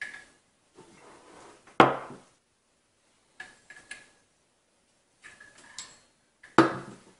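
Parts of an Arctic Z1 Pro monitor arm being handled on a wooden desk: a sharp knock about two seconds in, a few light clicks, then another heavy clunk near the end as the metal pole is fitted into the base.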